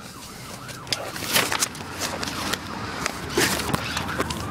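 Scattered clicks, knocks and rustling of handling and movement, with a steady tone starting near the end and rising in pitch.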